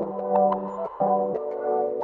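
Background music: held chords that change every half second or so, with light percussive ticks.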